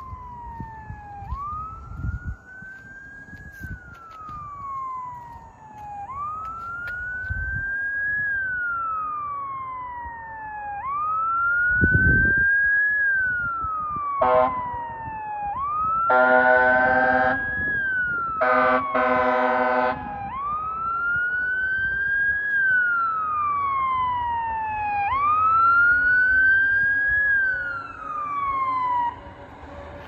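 Fire engine's wail siren, rising quickly and falling slowly about every five seconds. Midway the truck's air horn blasts once briefly, then twice long.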